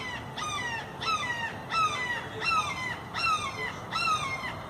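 A hawk calling a steady series of loud, clear screams, about seven in a row, each one dropping in pitch.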